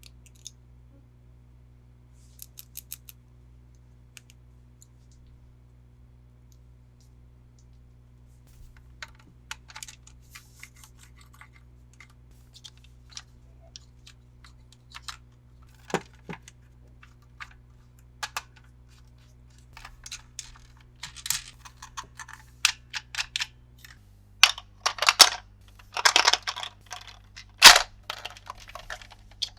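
Hands handling a toy and its packaging: scattered light clicks, taps and rustles. They grow busier and louder in the last several seconds, with one sharp click near the end, over a faint steady low hum.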